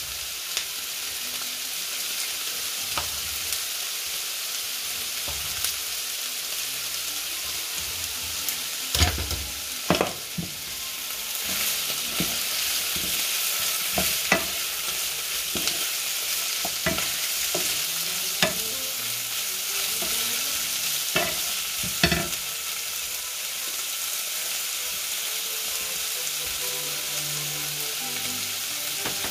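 Cubed pork belly sizzling steadily as it fries in a pan with no water in it. A wooden spoon stirring it knocks and scrapes against the pan every now and then, mostly in the middle stretch.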